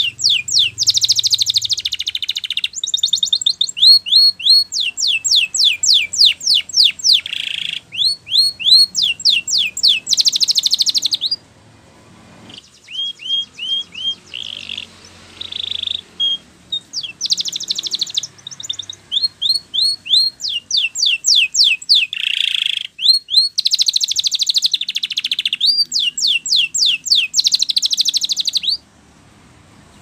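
Yellow canary singing a long, loud song of rapid trills and quickly repeated rising notes. It breaks off briefly about a third of the way through and stops shortly before the end.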